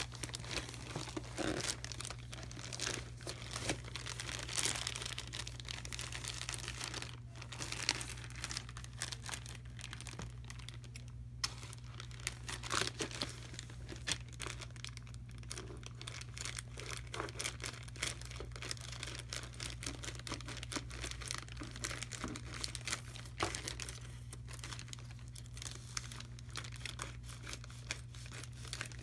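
Plastic poly mailer bag crinkling and tearing as hands handle it and pull it open, in a run of irregular crackles.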